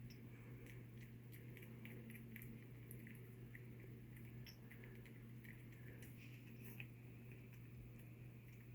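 Near silence: room tone with a steady low hum and faint, scattered small ticks.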